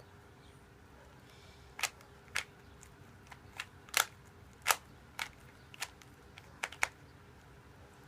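Plastic Rubik's cube being turned by hand: a run of about a dozen sharp, irregularly spaced clicks as its layers snap round.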